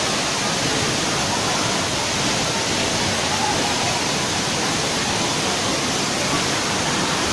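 Steady rush of Ditumabo Falls, water pouring and crashing without a break.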